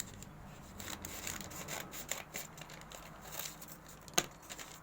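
Scissors snipping open a mystery toy package, with the packaging rustling between cuts; one sharp click about four seconds in.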